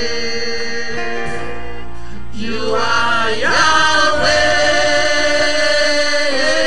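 Gospel worship music: long held instrumental chords, with a singing voice coming in about two and a half seconds in, its notes sliding between pitches.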